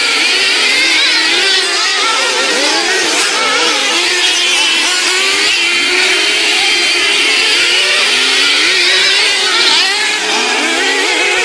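Several racing engines running at once, their pitches rising and falling as they rev and ease off.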